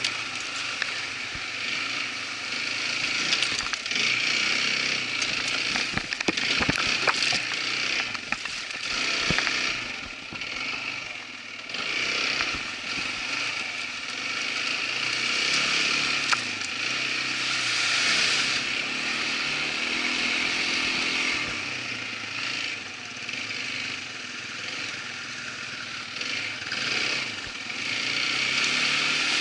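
Irbis ATV 200 quad bike's engine running while riding a trail, its note rising and falling with the throttle. A run of sharp knocks and clicks comes about six to nine seconds in.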